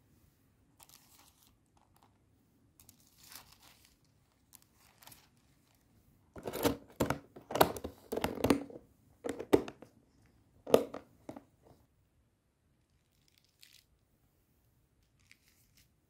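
Thin plastic sheets and a plastic storage box crinkling and crackling as they are handled. Faint rustles come first, then a run of loud crinkling from about six to twelve seconds in.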